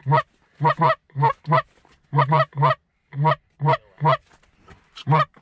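Goose honking: about a dozen short, loud honks and clucks in quick pairs and threes, the rapid calling used to work Canada geese.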